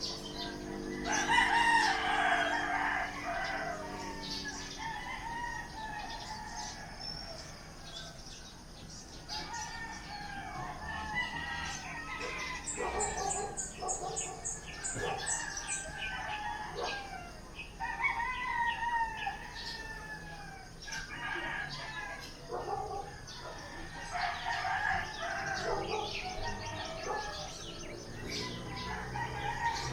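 Roosters crowing, the loudest crow about a second in, followed by repeated crowing and clucking calls from chickens, with small birds chirping.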